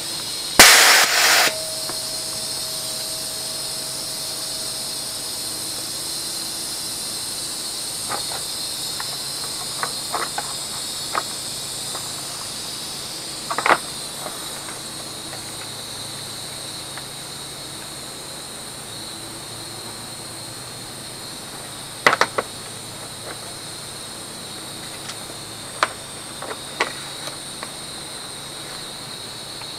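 Husky H1301F air compressor: a short loud burst of escaping air about a second in, then a steady high hiss under scattered clicks and knocks of its metal fittings being handled.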